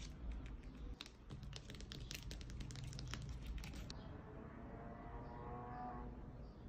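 Quick, irregular light clicks and taps of decorated fake claw nail tips being handled and adjusted on the fingers, stopping about four seconds in.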